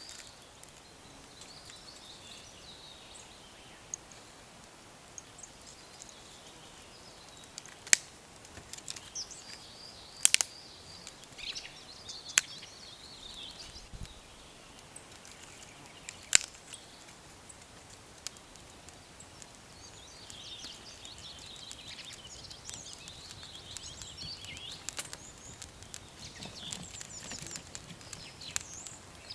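Small wood fire in an iron fire bowl catching from a tinder bundle, with a few loud sharp snaps and then a denser crackle in the last several seconds as the flames grow. Birds sing over it.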